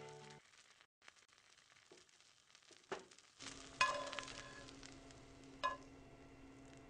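Scrambled eggs frying in a pan, a steady sizzle that starts about halfway through, with a spatula striking the pan twice.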